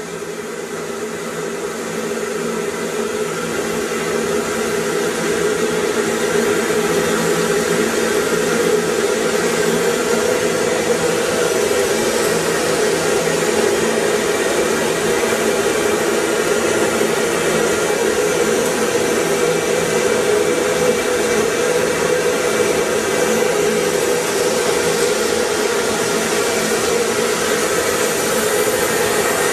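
Ruwac FRV200 air-powered explosion-proof industrial vacuum running, a steady rushing hiss of compressed air and suction through its hose as it picks up coal dust. It swells in loudness over the first several seconds, then holds steady.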